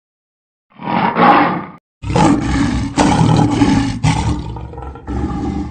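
A large animal roaring, loud: one short roar about a second in, then after a brief pause a longer roar lasting several seconds, with a short break near the end.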